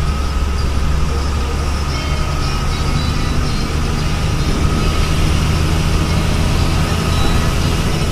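Steady low rumble of road and engine noise from a moving vehicle at highway speed.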